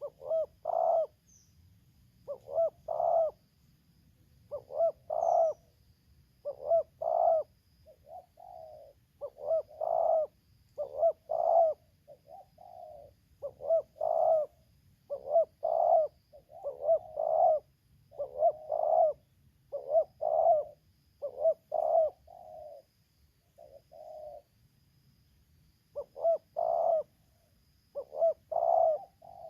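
Spotted doves (tekukur) cooing in repeated short phrases, roughly one a second and a half, some loud and close and some quieter between them, with a pause of a couple of seconds near the end.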